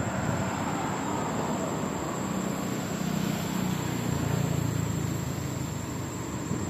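Steady rushing background noise with a low drone that comes in about two seconds in and eases off near the end.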